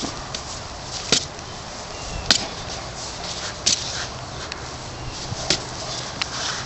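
Prop weapons whacking a pile of costume pieces lying on the ground: about six sharp, irregular blows a second or more apart.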